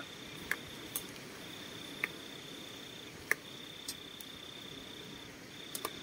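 A cricket trilling steadily on one high note, breaking off briefly three times, with a handful of sharp clinks of a spoon against the cooking pot.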